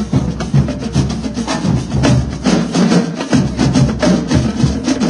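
Marching drumline playing a fast cadence: dense, rapid snare drum strokes and tenor drum hits over bass drums, with no pause.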